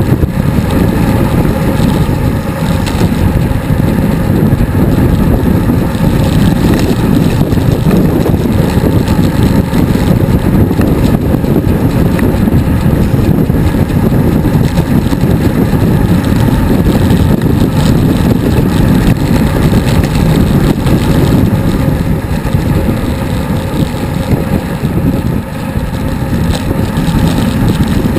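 Loud wind rush buffeting an action camera's microphone while riding a road bicycle at speed, a steady low rumble that flutters throughout.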